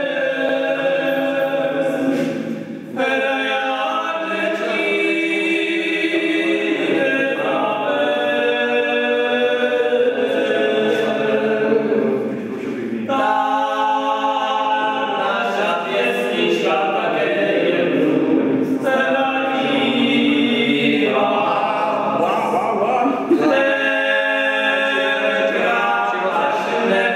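Men singing a folk song unaccompanied in several voices, in long held phrases with short breaths between them.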